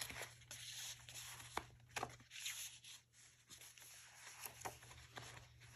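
Paper pages, tags and cards of a handmade junk journal rustling and crinkling quietly as they are handled and turned, with irregular light ticks.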